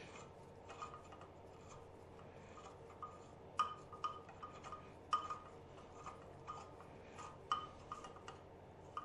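Light, irregular metallic clinks and taps of scooter fork parts and tools being handled, each with a short ring, a few of them sharper than the rest.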